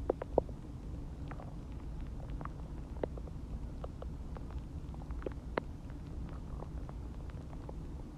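Human stomach gurgling during digestion after a meal and water: a steady low rumble with frequent short popping gurgles. Two sharp pops come right at the start and another about five and a half seconds in.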